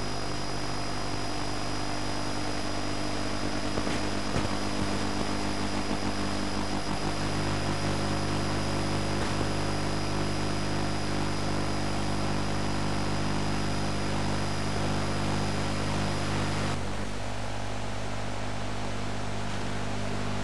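Steady low buzz and hiss with a thin high whine: the noise of a weak long-distance TV signal taped on a VCR that could not decode its sound, so no programme audio comes through. About 17 seconds in the whine stops and the hiss drops a little.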